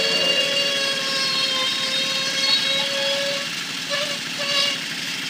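Well-drilling rig's small engine running steadily, with a whining note over a fast low chug.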